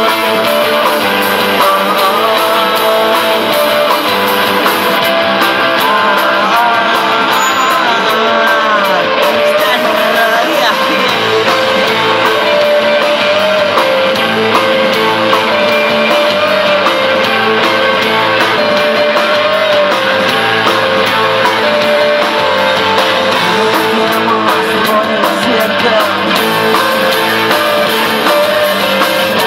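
Live rock band playing loudly through a PA: electric guitars, bass guitar and drum kit.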